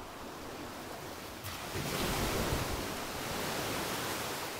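Sea waves washing onto the shore: a rush of surf that comes in suddenly about a second and a half in, swells, then slowly fades.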